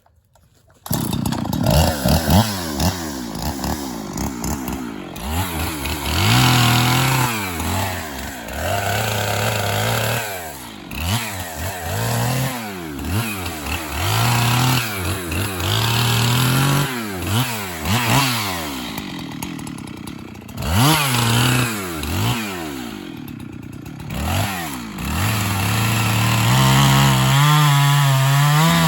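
Chainsaw cutting into a tree being felled: the saw comes in suddenly about a second in and is revved up and down over and over, then held at a steady high speed near the end.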